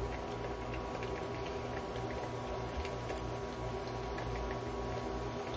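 Lumpia shanghai spring rolls deep-frying in oil in a wok: a steady gentle sizzle with sparse small crackles from the bubbling oil, over a steady low hum.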